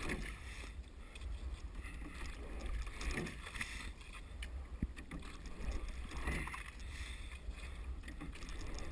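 Single rowing scull under way: water rushing past the hull and oars working, swelling with each stroke about every three seconds, over a low steady rumble of wind on the microphone.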